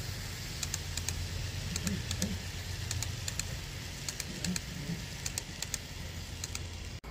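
Model train cars rolling past on the track: a steady low hum with a run of light clicks, often in pairs, as the wheels pass over the rail joints. The clicks stop near the end as the last car goes by.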